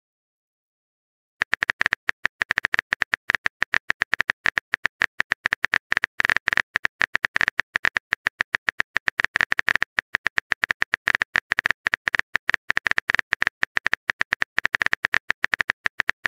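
Rapid typing clicks of a phone on-screen keyboard sound effect, many clicks a second, starting about a second and a half in.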